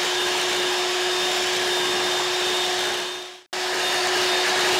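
Electric hand mixer running steadily with a constant whine, its beaters whipping cream in a glass bowl. The sound dies away and cuts out for a moment about three and a half seconds in, then starts again at the same speed.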